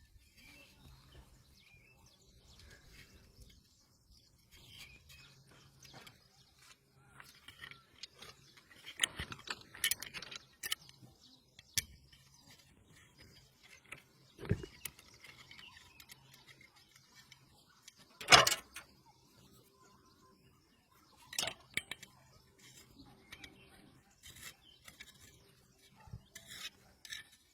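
Scattered metal clinks, clicks and knocks of tools and parts being handled, with one sharp clatter about two-thirds of the way in.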